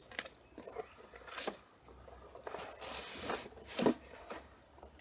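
Steady, high-pitched insect chorus, with scattered light clicks and knocks and one louder knock about four seconds in.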